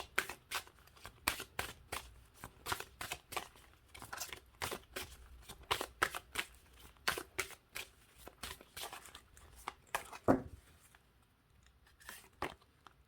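Deck of oracle cards being shuffled by hand: a fast run of card flicks and slaps that stops about ten seconds in, followed by a couple of light taps.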